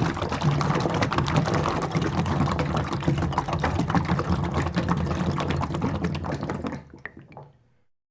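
Liquid pouring with a dense bubbling, gurgling crackle that runs steadily, then stops about seven seconds in, leaving a few last drips.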